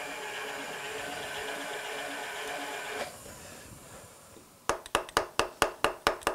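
A milling machine runs steadily, then is switched off about three seconds in and winds down. Near the end comes a quick run of about nine sharp taps from an orange soft-faced hammer, seating the cast engine base down onto the parallel in the vise.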